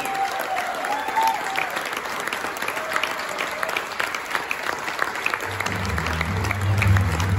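Audience applauding steadily at the end of a tango dance. About five and a half seconds in, low-pitched music starts up underneath.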